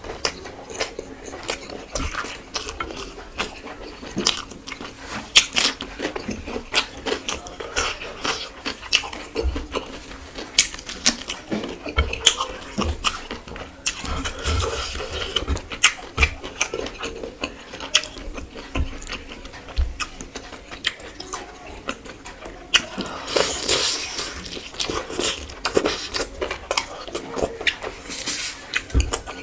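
A person eating close to the microphone: chewing and lip-smacking as a dense, irregular run of quick wet clicks.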